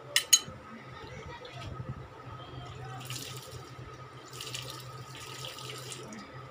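Two sharp clinks as a plastic mug is dipped into a metal basin of water. Then water is poured from the mug over a potted plant and splashes onto its leaves and soil in two spells, about three seconds in and again from about four and a half seconds.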